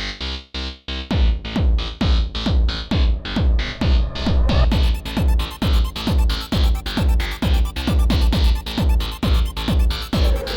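Electronic dance music with a steady beat: a synthesizer pulse, joined about a second in by a heavy bass drum.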